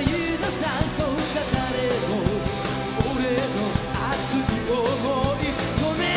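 Live rock band playing: a male lead singer sings a bending melody over electric guitar and a steady drum beat.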